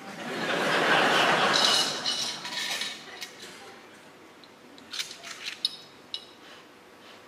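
A theatre audience laughing, the sound swelling over the first second and dying away by about three seconds in. Then several small, sharp clinks against glass, around five to six seconds in.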